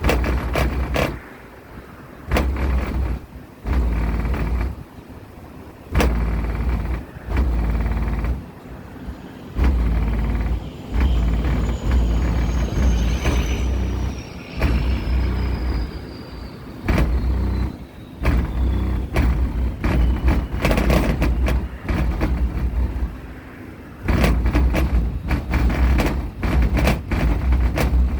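Two 15-inch Kicker subwoofers playing bass-heavy music loud, the deep bass hitting in blocks of a second or two with short gaps between them.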